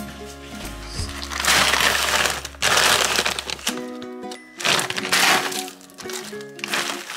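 Background music with loud crinkling of plastic packaging in several bursts, as a bag of frozen green beans and a plastic-wrapped cabbage are handled.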